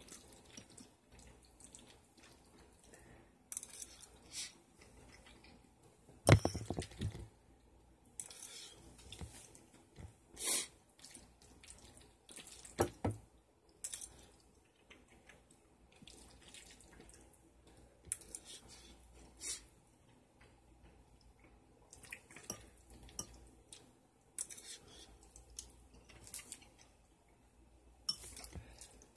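Eating sounds from someone wolfing down macaroni and cheese: wet chewing and mouth smacking, with a metal fork clinking and scraping against the bowl. A louder knock comes about six seconds in, and a few more follow near the middle.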